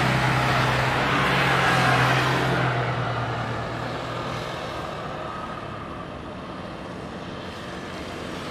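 Distant jet airliner engine noise, a steady rumble. A low hum fades over the first four or five seconds, and the sound swells again near the end.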